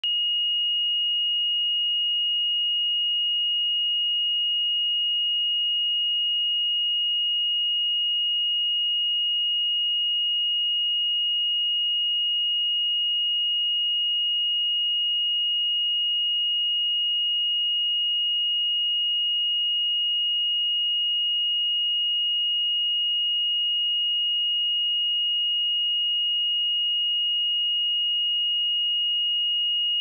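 A pure 2872 Hz sine-wave test tone, one steady high-pitched note held at an even level.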